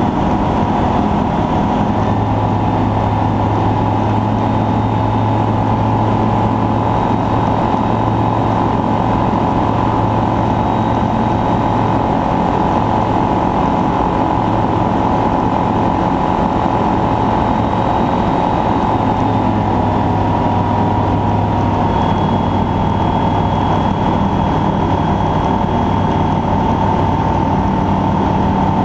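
Skyranger Classic microlight's Rotax 912S four-cylinder engine and propeller running steadily at constant power, a loud, even drone.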